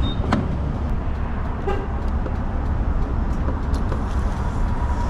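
Riding noise from a 2022 Indian FTR 1200 motorcycle on the move: a steady rush of wind with the 1203 cc V-twin engine running underneath.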